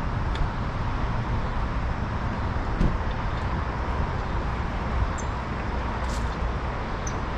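Steady outdoor background noise with a low rumble, and a few light clicks as lug nuts are threaded by hand onto the wheel studs of a large off-road tire, one about half a second in and one about three seconds in.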